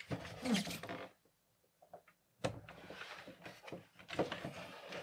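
The plastic housing of a smart trash can being handled and turned over: light knocks, bumps and rustling, broken by a second or so of silence, then a sharper knock and more handling.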